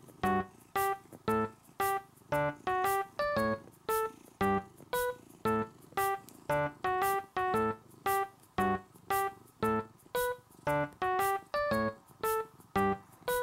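Background music: keyboard notes played over a steady beat, about two notes a second.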